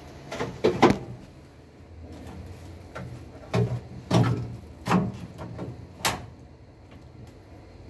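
Knocks and clacks of parts and panels being handled inside an open wall-hung combi boiler: about six separate knocks, two close together near the start and the rest spaced about half a second to a second apart from the middle on, over a low steady hum.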